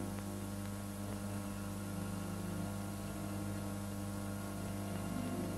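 Steady electrical mains hum with hiss on an old film soundtrack, with no other clear sound over it.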